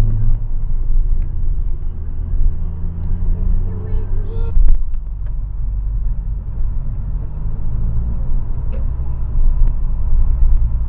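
Car engine and road rumble from inside the cabin, picked up by a dashcam's microphone. It changes abruptly about four and a half seconds in, where one recording gives way to another.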